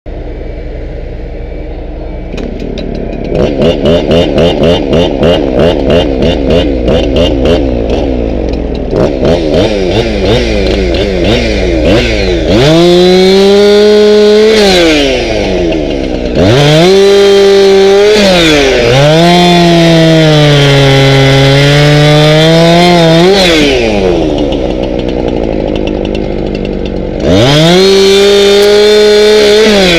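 Gas chainsaw revving in short pulses about twice a second, then run at full throttle through oak limbs in three cuts. In the longest cut the engine pitch sags under load, and the saw drops back to idle between cuts.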